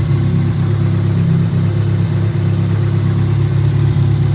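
Car engine running at a steady idle, loud and close, with a slight uneven flutter. It is running with its gasket freshly resealed with silicone and its oil refilled.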